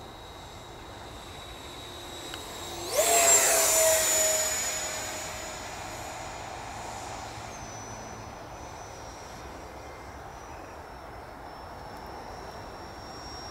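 Electric ducted fan of an Arrows Hobby BAE Hawk RC jet making a pass. A sudden loud rush with a high whine comes about three seconds in, its pitch dropping as it goes by. It then fades into a quieter, steady distant whine.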